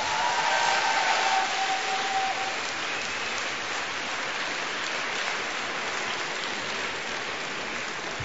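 Large hall audience applauding steadily, loudest in the first second or two, greeting a speaker called to the podium.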